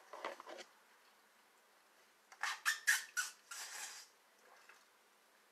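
Milk being slurped through a drinking straw: a few short sucking slurps about two and a half to four seconds in, with a brief one right at the start.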